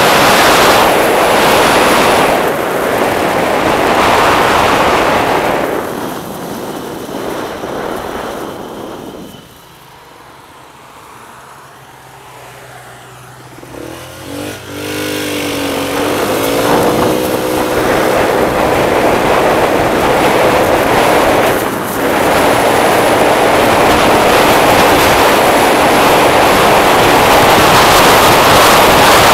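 Wind rushing over the microphone of a camera on a moving scooter, loud and steady. About ten seconds in it falls away as the scooter slows, leaving the engine idling faintly; the engine then revs up, rising in pitch as the scooter pulls away, and the wind noise builds again.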